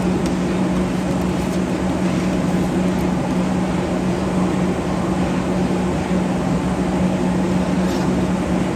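Steady, loud machine hum with a low drone from kitchen equipment, running unchanged while a large steel pot of gravy is stirred with a flat spatula. A couple of faint knocks from the spatula against the pot.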